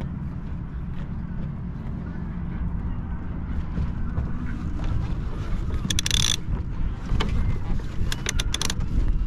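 Wind buffeting the microphone aboard a small gaff-rigged sailing boat as she tacks, with a brief clatter of clicks about six seconds in and a few more sharp clicks near the end, from the sails, sheets and blocks being worked through the tack.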